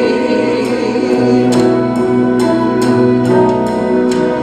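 Worship band playing an instrumental break between sung verses: held chords with regular cymbal and drum strikes, no singing.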